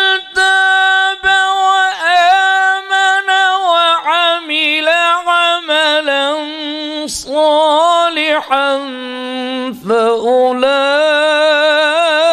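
A man reciting the Qur'an in melodic tajweed style into a microphone. He holds long notes that waver in ornamented runs, with a few short breaks between phrases.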